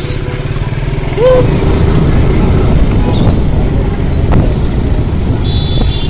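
Motorcycle riding along in traffic: a steady low rumble of engine and air on the microphone. A thin, steady high whine comes in past halfway.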